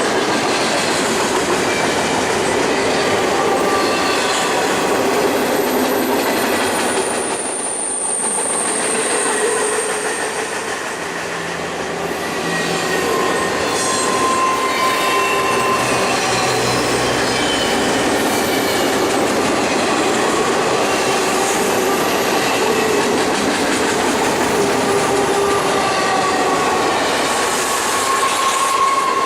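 Intermodal freight train cars rolling steadily past, with a continuous rumble, clickety-clack over the rail joints and thin squealing tones from the wheels against the rails.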